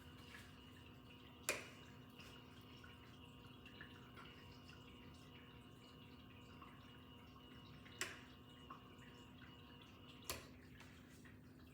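Faint steady hum of a 1998 Hunter Medalist ceiling fan running, with three sharp clicks: one about a second and a half in, one about six seconds later, and one two seconds after that.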